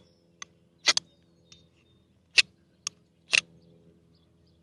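True Mycro utility knife scraped down a ferro rod in short strokes: three sharp scrapes with a few lighter clicks between them. The knife is not striking sparks well from the rod.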